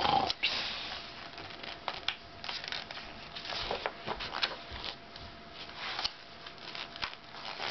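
Irregular rustling and crinkling of paper as the pages of a picture book are handled, in a small room.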